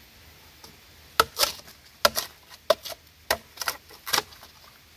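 Machete blade chopping into a young green bamboo stalk: about eight sharp, irregular strikes, starting about a second in.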